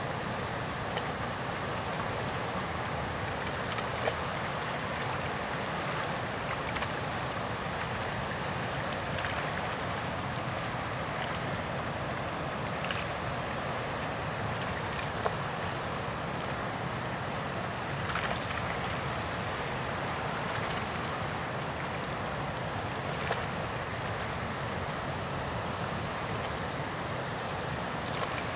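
Steady outdoor background hiss, even and unbroken, with a few faint clicks; a higher hiss in it fades after about seven seconds.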